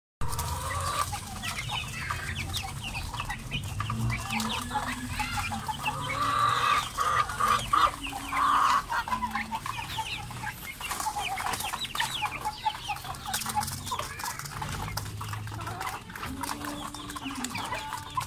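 A flock of young Dominant CZ chickens clucking and peeping as they feed, calls coming thick and fast and loudest about 6 to 9 seconds in.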